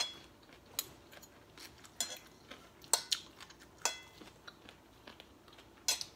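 Metal spoons and forks clinking against ceramic plates while eating: about seven separate sharp clinks, the loudest right at the start, a couple of them ringing briefly.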